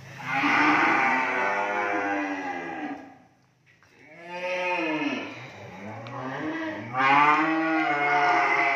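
Cattle mooing: three long moos one after another, the first and last about three seconds each, the middle one shorter and bending up then down in pitch.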